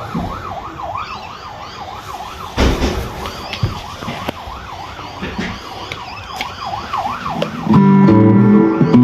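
A warbling siren-like tone rising and falling about three times a second, with a single knock about two and a half seconds in. Near the end, loud guitar music starts playing through the guitar practice amplifier.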